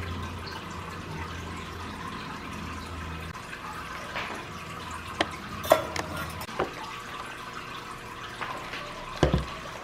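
Cream poured into a stainless steel pitcher, a steady liquid pouring and filling sound, followed by a few sharp knocks and clicks of metal against the pitcher, the loudest a little after halfway.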